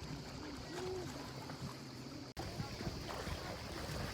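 Faint voices over a steady outdoor background hiss, with a sudden brief dropout a little past two seconds in.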